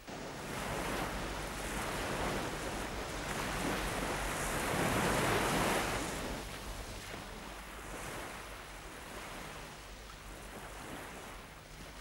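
Sea waves breaking on a rocky shore, the surf swelling to its loudest about five seconds in and then easing back to a steady wash.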